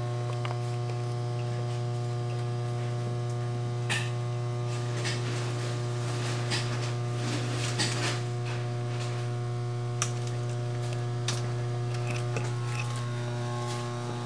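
A steady low electrical hum with fainter steady tones above it, broken by a few light clicks and rustles, a sharper click about ten seconds in.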